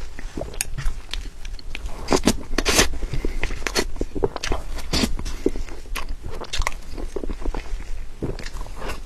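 Close-miked mouth sounds of someone eating soft cream cake: wet, sticky chewing and smacking, with many quick irregular clicks.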